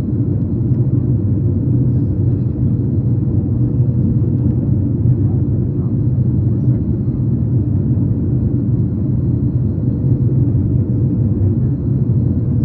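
Steady low rumble of cabin noise inside a Boeing 737 MAX 8 on its descent to land: airflow over the fuselage and its CFM LEAP-1B turbofan engines, with a faint steady hum above the rumble.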